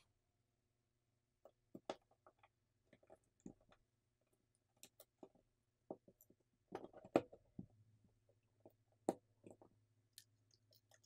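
Faint, scattered clicks and taps of small phone parts and tools being handled while a Google Pixel 8a smartphone is put back together, the loudest a short cluster about seven seconds in.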